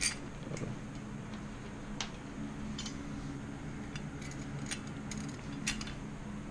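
Scattered light metallic clicks and taps as bike parts and motor-mount hardware are handled, a few seconds apart, over a steady low background hum.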